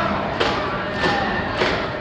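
Festival procession carrying a portable shrine (mikoshi): a regular beat of sharp strikes, a little under two a second, under chanting voices of the crowd.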